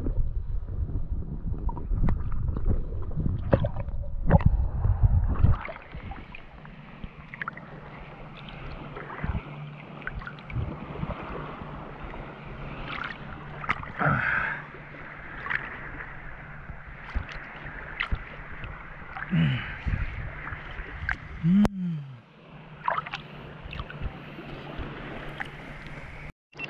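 Shallow seawater sloshing and splashing around a hand-held camera as a hand scoops through the water. For the first six seconds or so the microphone is under the surface, giving a louder, muffled rumble; after that the water is quieter, with scattered small splashes and drips.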